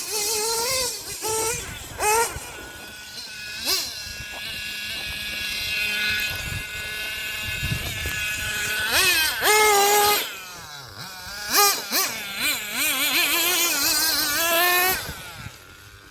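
Hobao Hyper 7 TQ buggy's .21 three-port nitro engine running with a high-pitched buzz, revving up and down in repeated sweeps as the car is driven, with sharp climbs about nine and eleven seconds in. It drops away near the end.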